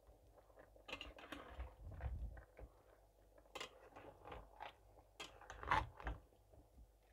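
Metal slotted turner stirring and turning chicken pieces in a steel pan of thick sauce: irregular wet squelches and scrapes, with clicks of the utensil against the pan, loudest near the end.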